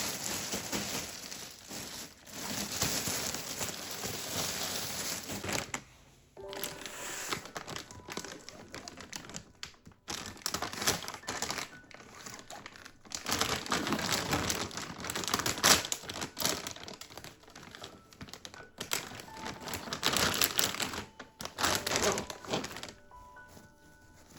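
Plastic packaging crinkling and rustling as parcels are handled and opened, in irregular spells with short pauses, over soft piano music.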